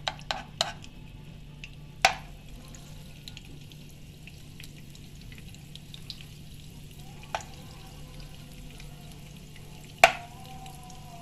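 Butter melting in hot oil with a faint sizzle, stirred with a metal spoon in a non-stick pot. The spoon clicks against the pot a few times, loudest about ten seconds in, with a short ring after.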